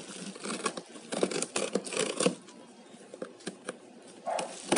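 Cardboard packaging of a rice-cooker box being handled and opened: a sharp tap, then about two seconds of quick clicks, scraping and tearing-type rustles, a pause, and another louder burst of handling noise near the end.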